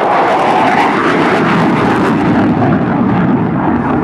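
Loud, steady jet noise from an F-16 fighter's engine running in afterburner as the jet climbs away.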